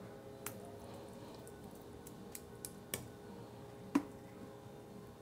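A metal spoon scooping seasoning from a jar, with a handful of short clicks as it knocks against the jar and the table. The loudest click comes about four seconds in. A faint steady hum runs underneath.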